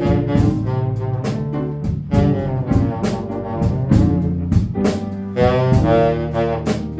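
Band playing a jazz-style ballad arrangement: a sustained melody line over double bass and regular drum hits.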